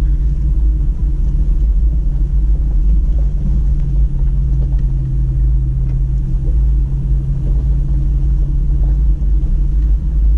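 Toyota Tacoma driving along a dirt trail, heard from inside the cab: a steady, low engine drone over a dense rumble of road noise.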